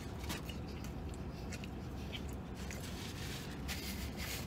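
A man chewing a bite of a sub sandwich: small scattered wet mouth clicks over a low steady hum.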